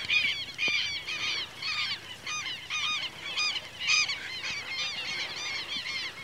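Rapid, overlapping high-pitched animal calls, several a second, each a short arching yelp.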